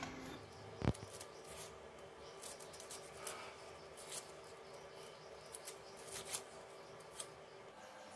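Faint crackling and rustling as dry onion and garlic skins are peeled by hand, with scattered small clicks and one sharp knock about a second in.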